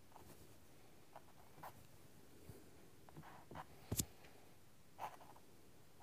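Faint scratching and light taps of a small paintbrush working on a stretched canvas, with one sharper tap about four seconds in.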